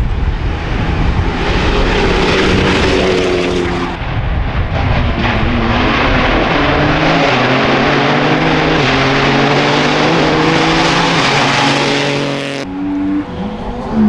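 Rally car engine at full throttle on a special stage, revving hard and jumping in pitch as it shifts through the gears. It cuts off abruptly near the end.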